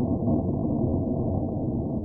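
Designed factory-machinery ambience: a deep, muffled, steady mechanical drone and rumble with a faint hum running through it.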